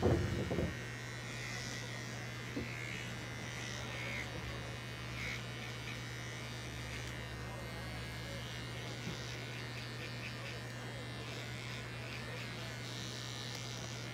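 Small handheld electric pet trimmer running with a steady buzz as it clips the fur between a cat's paw pads. A brief louder sound comes right at the start.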